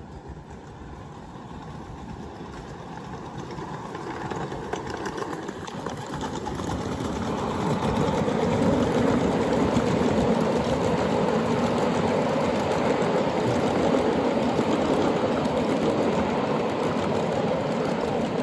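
Ride-on scale train passing on small-gauge track: the locomotive and a long string of miniature freight cars roll by, their wheels rumbling and clattering on the rails. The sound grows louder over the first eight seconds as the train nears, then holds steady while the cars go past.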